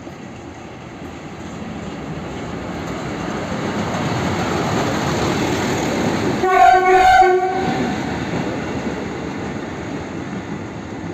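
WM-15A rail maintenance motor car, hauling a ballast hopper wagon, rolls past with its diesel engine and wheel noise rising to a rumble as it comes close and fading as it moves away. About six and a half seconds in, a horn sounds for about a second.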